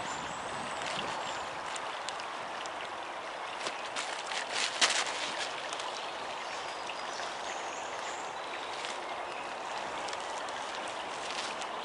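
Shallow stream running steadily over gravel, with rustling and clicks of jacket fabric as a jacket is pulled on, loudest about five seconds in.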